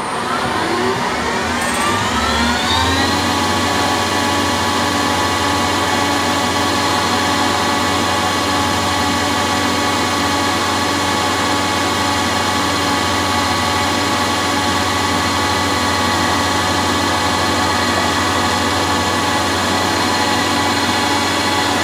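CNC lathe spindle spinning up with a rising whine over the first few seconds, then running at a steady speed while turning small brass detent balls.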